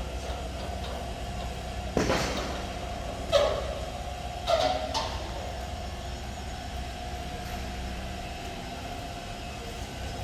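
Industrial rotary dryer running on test: a steady low hum with a constant mid-pitched whine, broken by three loud metallic clanks that ring briefly, about two, three and a half and four and a half seconds in.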